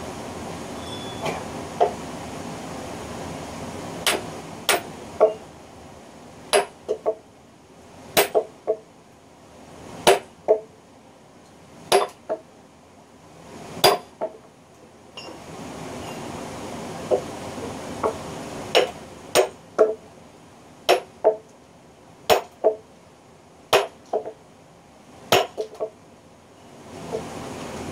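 A sledgehammer drives a steel splitting wedge into a log to split it lengthwise along the grain. Each sharp metal-on-metal blow rings briefly, and a hard strike is often followed by a lighter one, about one every second or two. The blows come in two runs with a short pause between them.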